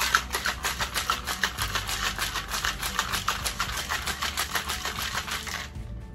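Ice cubes rattling inside a stainless-steel cocktail shaker shaken hard by hand, a fast even clatter of about six strokes a second that stops shortly before the end.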